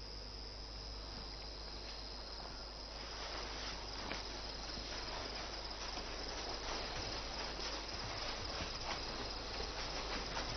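Steady insect chirping, like a night-time ambience, with one high continuous note over an even hiss. About three seconds in, a fuller hiss with faint crackles joins it and runs on.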